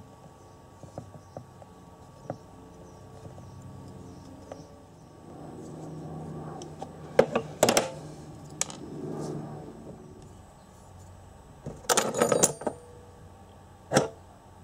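Metal hand tools (locking pliers, then a steel rod) clanking and clinking against a metal workbench: a few faint ticks, then sharp clatters about halfway through, again near the end, and one last single clank.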